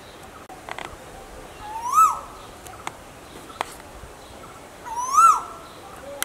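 Asian koel calling twice, about three seconds apart: each a clear whistled note that swoops up and then drops back down.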